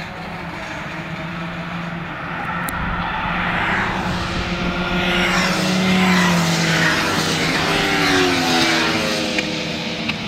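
Several racing motorcycles accelerating down a track straight and passing close by at speed. Their engine notes grow louder, and several sound at once before dropping in pitch as the bikes go past.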